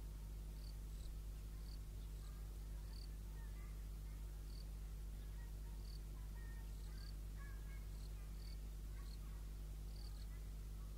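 Quiet outdoor ambience beside a rural railway line: short, high chirps repeat about every three-quarters of a second, with fainter lower chirps scattered between them, over a low steady hum. No train is passing.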